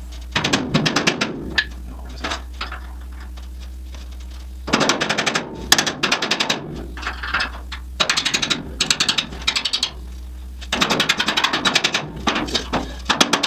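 A power tool rattling with rapid, even clicks in four short bursts, over a steady low hum.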